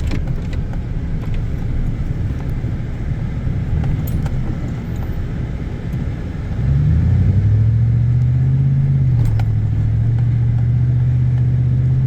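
A four-wheel-drive vehicle climbing a snow-covered hill: a low engine rumble at first, then about halfway through the engine note rises and holds steady and louder as it pulls up the grade.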